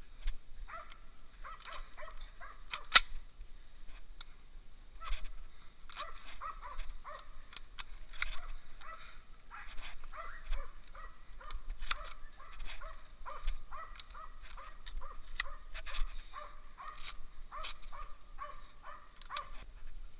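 Russian-European laika barking over and over, about two barks a second through the second half, the steady bay of a hunting dog. Sharp snaps and crackles mixed in, the loudest about three seconds in.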